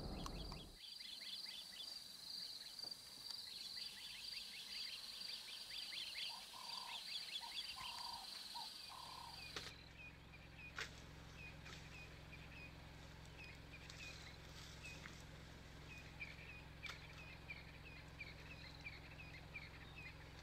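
Birds chirping in a dawn chorus over a steady high trill, with three lower calls in a row around the middle. About ten seconds in, the trill stops and a low steady hum comes in under continued chirping, with a few sharp snaps now and then.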